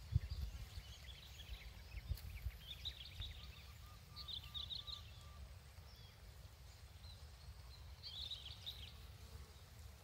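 Wind buffeting the camera microphone, gusting hardest in the first couple of seconds, with small birds chirping in three short bursts of quick high notes and a faint run of about five short, evenly spaced lower notes near the middle.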